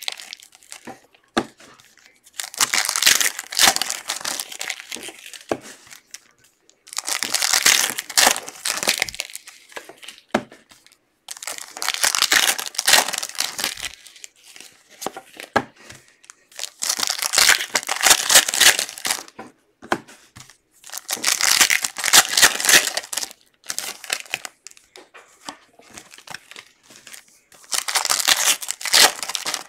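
Trading-card pack wrappers being torn open and crinkled by hand, in repeated crackling stretches of one to three seconds with short pauses between.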